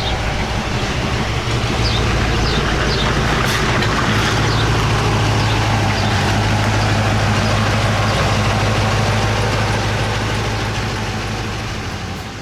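Truck engine running steadily at a constant speed, easing off slightly near the end.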